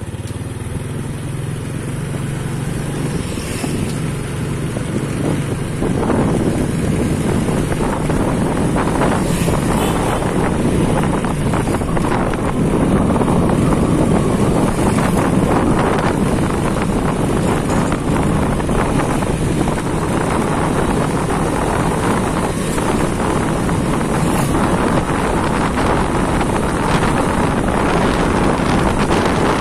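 Motorcycle engine running while riding along a road, with wind rushing over the microphone. It grows louder over the first several seconds as the bike picks up speed, then runs on steadily.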